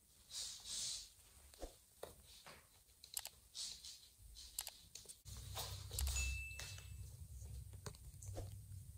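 Light clicks and taps of kittens' paws and claws on a hard laminate floor as they walk about, with a short rustle about half a second in. A low rumble comes in about halfway through.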